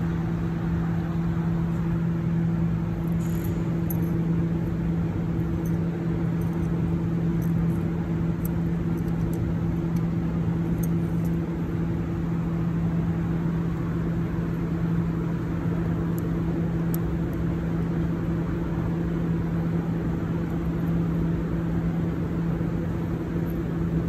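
A steady low mechanical hum at one constant pitch, with a few faint high ticks.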